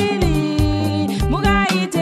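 Zambian popular song: a voice singing over a steady beat with bass and other instruments.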